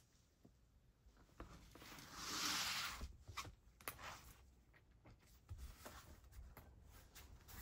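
A cat eating from a bowl: faint, scattered clicks of chewing, with a louder rustling, rasping noise lasting about a second, a couple of seconds in.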